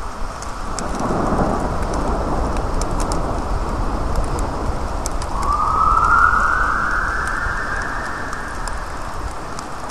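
Rain and dripping water in a wet city street, with sharp drip ticks over a steady hiss. About five seconds in, a distant siren wail rises in pitch and holds.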